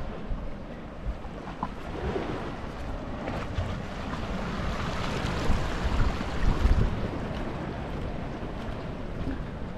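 Small sea waves washing against the boulders of a rock breakwater, with wind buffeting the microphone in low gusts.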